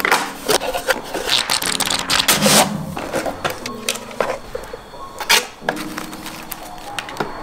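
Cardboard box and packaging being handled: a run of irregular rustles, scrapes and light taps as the box flaps are opened and microfibre cleaning pads are lifted out.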